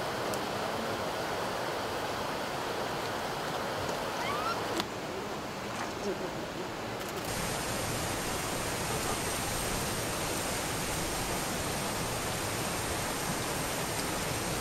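Steady rushing noise of flowing hot-spring water, with the background changing abruptly about halfway through.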